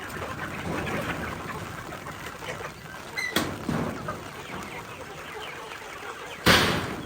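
A flock of chickens clucking and calling. A sharp click comes a little past three seconds in, and a loud short knock near the end.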